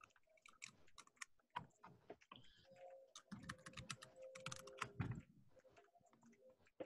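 Faint typing on a computer keyboard: a quick, uneven run of keystrokes as a username and password are entered, with one sharper click just before the end.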